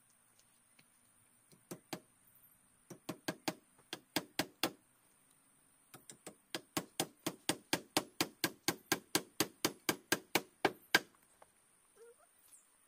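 A tool striking bamboo in sharp, hard knocks: two single blows, then a quick group of about seven, then a steady run of about four blows a second that stops suddenly.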